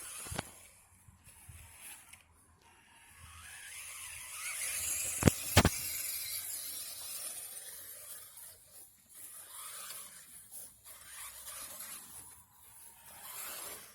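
Electric RC truck driving over the ground: a hissing rush that swells and then fades. There are sharp clicks early on and two close together about five seconds in.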